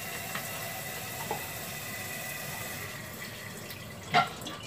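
Kitchen tap running, water pouring steadily into a cooking pot to fill it with a little water. A brief louder clank about four seconds in.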